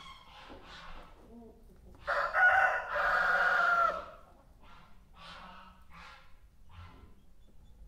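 A farmyard rooster crowing once, about two seconds in, a loud two-part cock-a-doodle-doo lasting about two seconds. Fainter short calls of other poultry come before and after it.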